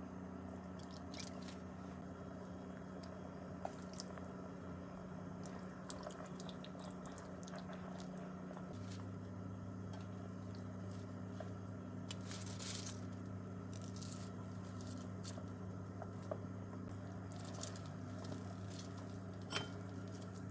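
Soft kitchen handling sounds as ingredients go into a clay pot: a few light clicks and taps, and a brief rustle about two-thirds of the way in. Under them runs a steady low hum.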